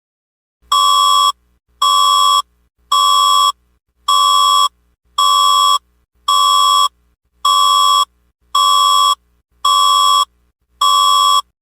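Emergency alert system test tones concluding the test: ten identical electronic beeps, each a little over half a second long, evenly spaced about one a second.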